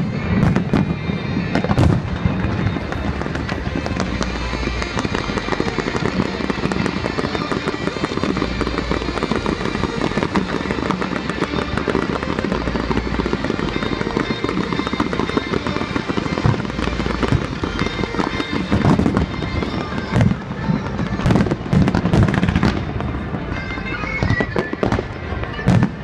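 A fireworks display: a continuous run of bangs and dense crackling bursts, heaviest about a second in and again from a little past the middle.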